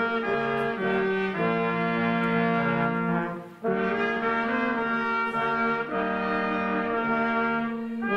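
Church brass choir (Posaunenchor) playing a slow piece in held chords that change about once a second, with a short breath pause about three and a half seconds in.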